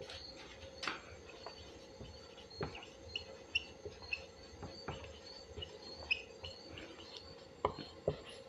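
Faint taps and strokes of a marker writing on a whiteboard, with a few sharper clicks. Short high bird chirps repeat faintly in the background.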